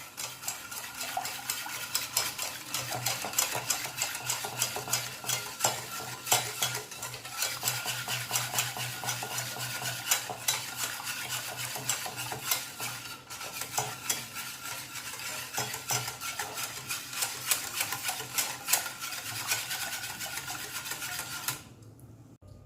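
A utensil stirring briskly in a metal saucepan, a fast run of scraping clicks against the pan that stops near the end. It is mixing pastry-cream powder and sugar into cold milk so that no lumps form.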